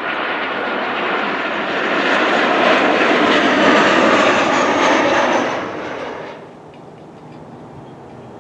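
Jet engines of a CRJ-200 regional jet going by with a loud rushing noise and a faint high whine. The sound swells to a peak about four seconds in, then fades away over the next two seconds.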